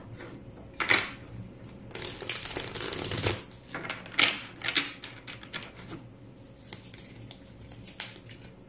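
Tarot cards being shuffled and handled. There is a sharp snap about a second in, a dense shuffling rush from about two seconds lasting over a second, then several sharp card snaps and taps, trailing off into light ticks.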